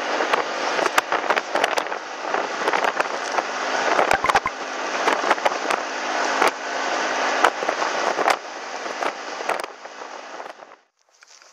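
Wind rushing over the microphone and road noise while riding a bike, peppered with crackling knocks. It cuts out briefly near the end.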